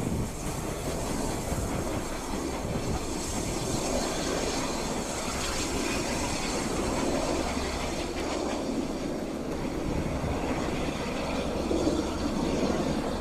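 Two coupled steam locomotives running along the track, with their wheels clicking over the rail joints.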